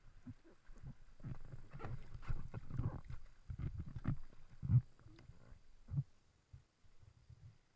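River water sloshing and slapping against an inflatable river tube right by the camera, in irregular low thumps and splashes, the loudest about four and three-quarter seconds in.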